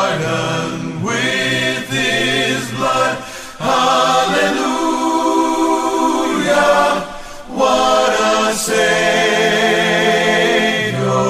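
Choir singing a hymn in long held notes.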